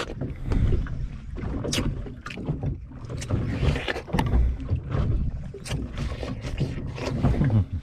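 Fishing boat on open water: a steady low rumble with wind on the microphone and irregular sharp slaps of water against the hull.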